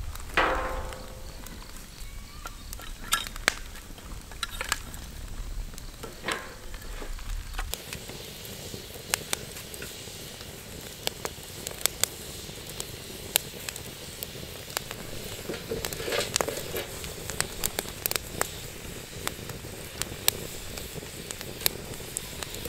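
Firewood burning with irregular crackles and pops. A short ringing sound comes right at the start.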